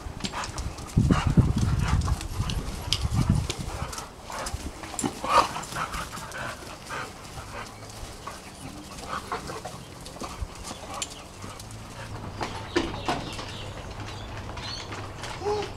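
Several dogs play-fighting: low growling in the first few seconds, then scuffling and the patter of paws and claws.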